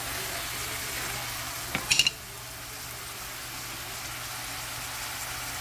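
Diced onions sizzling steadily in hot oil in a hammered metal kadai, frying toward golden brown. Just before two seconds in, a quick few clacks of the wooden spatula against the pan are the loudest sound.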